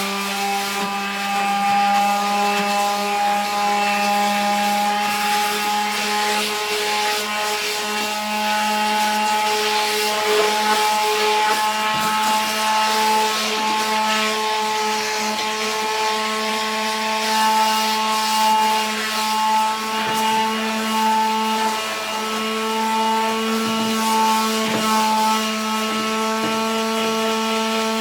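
Electric sander running steadily with a constant motor hum while sanding the edges of a wooden skateboard deck, rounding them over, with scratchy rubbing of sandpaper on wood.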